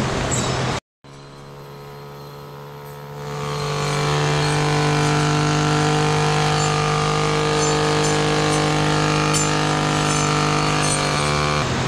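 Engine-powered brush cutter running steadily, revving up to full speed about three seconds in as it cuts through dense undergrowth. There is a brief gap of silence about a second in.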